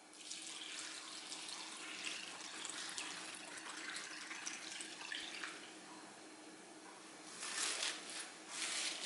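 Milky water-kimchi brine poured steadily from a bowl onto stonecrop greens in a glass container, splashing and trickling. Near the end come several louder wet swishes as a spoon presses and stirs the soaked greens.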